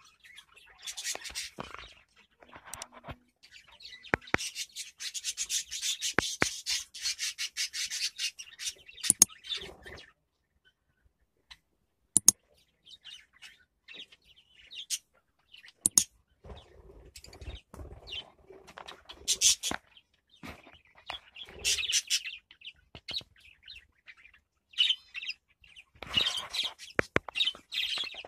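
Budgerigars chirping and warbling: a dense run of high chatter, a short pause, then scattered chirps and another burst near the end, with a few sharp clicks.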